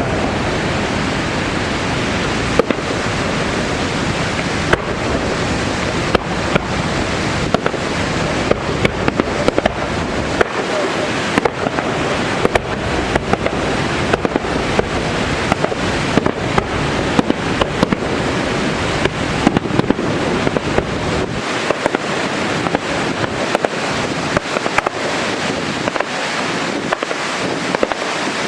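Fireworks going off: many sharp bangs and crackles, irregularly spaced, over a steady roar of noise.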